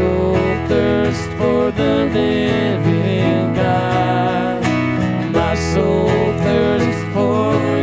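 Live worship song: an acoustic guitar strummed steadily while a woman sings into a microphone, with sustained low notes underneath.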